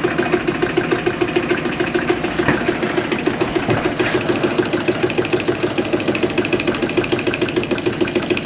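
Water-cooled Stirling hot-air engine running steadily with an even mechanical beat of about five strokes a second, over the steady hiss of its gas burner.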